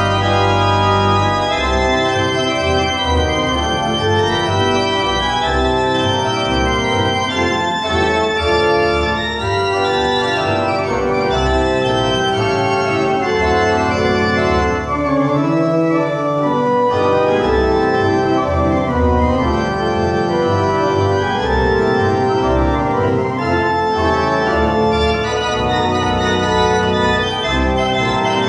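Church pipe organ playing a lively tune in the light Blackpool dance-organ style: full sustained chords over short, detached pedal bass notes that pulse along steadily.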